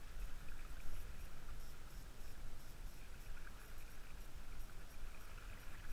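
Gentle water lapping around a wading angler's legs, with a low wind rumble on the microphone.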